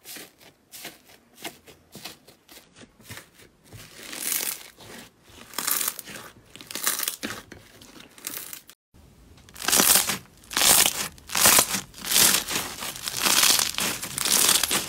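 Slime being pressed and stretched by hand: fine crackling and tearing at first, then, after a short break, louder crackly squishing in rhythmic strokes as a clear slime full of foam beads is squeezed.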